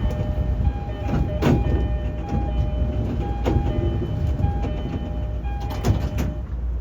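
Commuter train running, heard from inside the car: a steady low rumble with sharp clacks from the wheels over rail joints, loudest about a second and a half in and again near the end. A two-note tone alternates over it until near the end.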